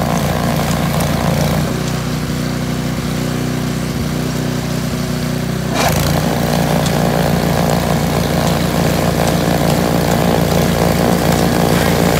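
Snow blower's small engine running steadily while its auger and chute throw snow. About halfway through the sound turns abruptly louder and fuller.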